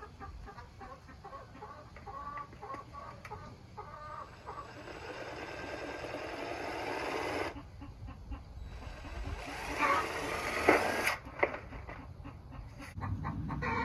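Power drill driving pan-head screws down through corrugated tin sheeting: two runs of a few seconds each, the first rising in pitch, each stopping abruptly, followed by light clicks. Hens cluck in the first few seconds.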